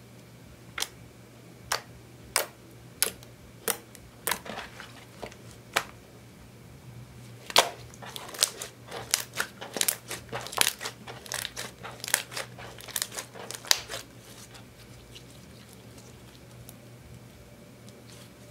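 Glossy clear slime tinted purple with mixed-in eyeshadow being pressed and squeezed by hand, trapped air popping out in sharp clicks. The pops come about one every 0.7 s at first, then crowd into a quick crackling run in the middle, and stop about three-quarters of the way through.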